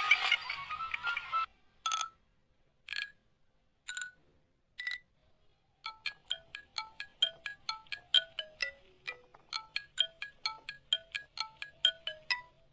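A tune of single bell-like struck notes: four slow notes about a second apart, then a quicker melody at about three notes a second. Before it, a busier mix of sound cuts off about a second and a half in.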